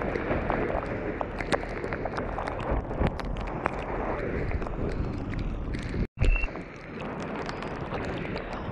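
Wind buffeting the microphone during a chairlift ride: a steady rough rushing with scattered small clicks. The sound drops out for an instant a little past halfway, followed by a short loud bump.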